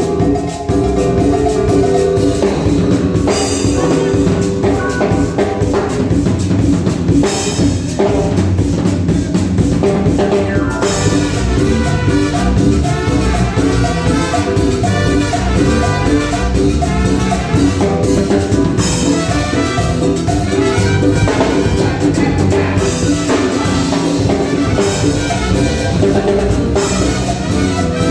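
Live cumbia band playing, with drum kit and percussion keeping a steady dance beat.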